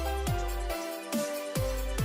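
Electronic music with a heavy sub-bass and repeated drum hits that drop sharply in pitch, about two a second.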